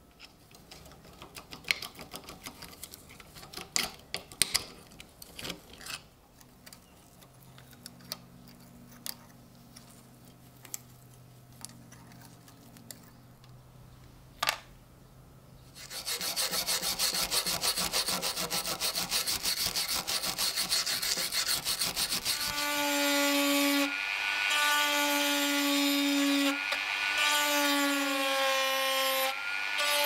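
A few faint clicks of small metal knife parts being handled on a wooden board, then about halfway a handheld rotary tool starts running loudly against metal, its motor whine wavering in pitch as the bit works at a rivet on the knife's steel frame.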